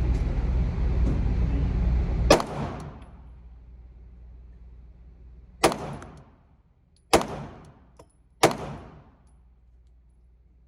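Four 9mm pistol shots from a Glock 19, fired one at a time: the first about two seconds in, then three more spaced a second or two apart. A steady low rumble underlies the start and drops away after the first shot.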